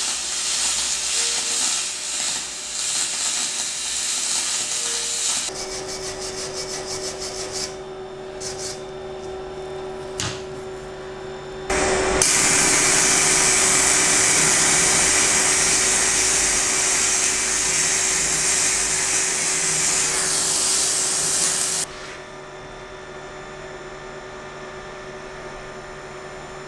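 MIG welding arc on aluminium, 1.2 mm ER5356 wire under pure argon at 200 A: a steady hiss for the first five seconds, a quieter stretch with a few clicks, then about ten more seconds of steady arc hiss that stops near the end, leaving a low steady hum.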